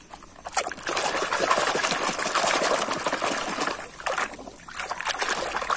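Muddy water sloshing and splashing in a basin as a plastic toy car is swished and scrubbed through it by hand. It starts about half a second in and eases briefly about four seconds in before picking up again.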